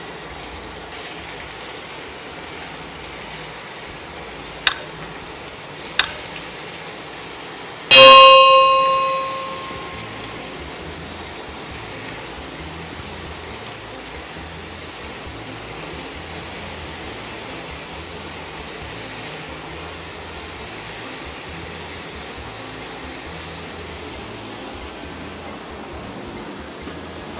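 Sago-and-rice-flour rings deep-frying in hot oil in an aluminium wok, a steady sizzle and bubbling. About eight seconds in, one loud bell-like metallic ring sounds and fades over about two seconds. Two sharp clicks come shortly before it.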